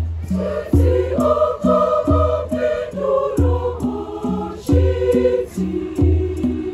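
A choir singing in harmony over conga drums beating a steady rhythm, with hand shakers ticking along. The voices drop back near the end while the drums carry on.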